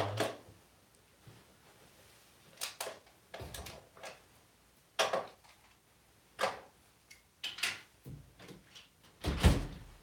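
Scattered knocks and clicks of plastic toy containers and toys being handled on a countertop, a few at a time, with a heavier thump near the end.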